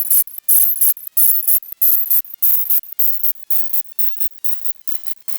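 Electronic pop song sped up so many times over that it no longer sounds like music: a choppy stream of short, hissy, high-pitched bursts, about three a second, growing fainter toward the end.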